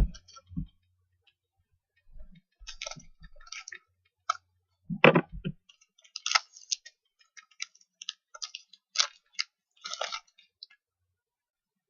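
Trading cards being handled and flipped through by hand: scattered clicks and quick papery slides, with one louder thump about five seconds in.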